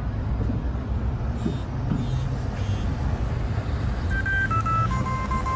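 Dexcom G6 glucose-monitor receiver playing an alert-tone preview about four seconds in: electronic beeps stepping down in three pitches, the lowest repeating in quick pulses. Steady traffic rumble runs underneath.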